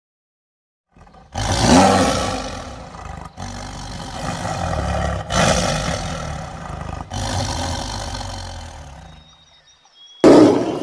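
Big cat, most likely a lion, giving long rough roars that start about a second in. The roars are spliced together with abrupt cuts, fade out, and a fresh loud roar begins near the end.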